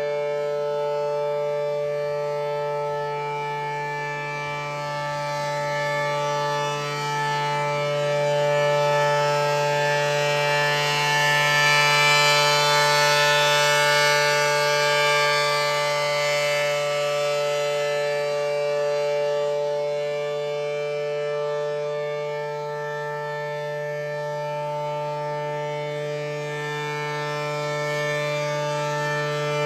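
ACA P-10 tornado siren sounding its steady single tone, swelling louder around the middle and easing off later. It is running a little slow, which the owner puts down to a bad run winding in its motor.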